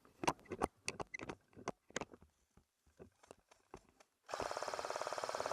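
An airsoft gun firing a full-auto burst, a fast even rattle of shots, starting about three-quarters of the way in. Before it come scattered crunching steps and clicks of movement.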